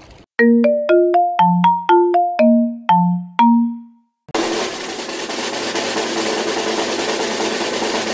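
A short editing jingle of about nine struck mallet notes like a marimba or xylophone, each ringing briefly. After a short pause comes a dense, even rush of noise lasting about four and a half seconds that cuts off suddenly.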